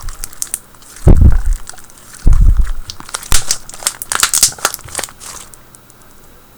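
Very thick slime with foam beads being pressed and squished by hand, giving a run of crackling, crinkly pops, with two heavy low thuds about a second and two seconds in. It fades to faint handling near the end.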